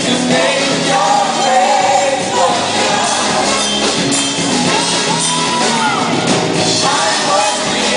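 Gospel worship song played by a full band under a lead vocal. The melody line slides up and back down about midway.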